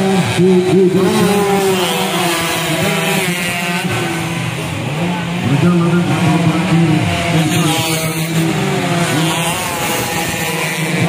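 Several two-stroke underbone motorcycle engines revving at once, their pitch repeatedly rising and falling and overlapping.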